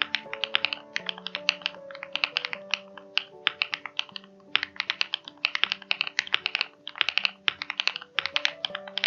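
Fast typing on a Monsgeek M2 mechanical keyboard with Hyacinth V2U switches and Akko pudding keycaps, tape-modded in two layers with PE foam for a crackly, poppy keystroke sound. The typing comes in quick runs with brief pauses about four and seven seconds in, over background music.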